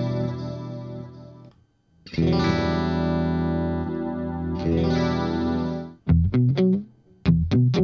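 Electric guitar played through an Eventide PitchFuzz pitch-shifting fuzz pedal. A held fuzzed chord fades out about a second and a half in, and a second one is struck and rings until about six seconds in. After that come short, clipped low notes, picked one after another.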